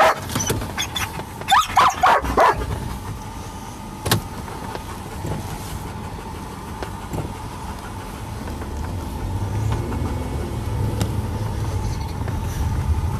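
A car heard from inside the cabin while driving: a steady low road and engine rumble that grows louder in the second half. A dog yips and whines a few times in the first couple of seconds, and there is a single click about four seconds in.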